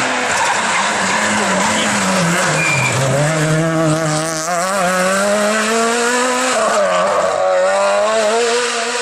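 Rally car engine on a stage: the revs fall for about three seconds as it slows, then climb steadily as it accelerates, dip briefly on a gear change and climb again.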